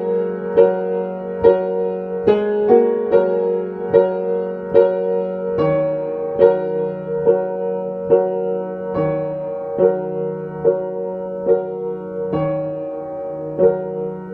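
Piano playing a slow instrumental passage: single notes struck about once a second over held chords, growing softer toward the end.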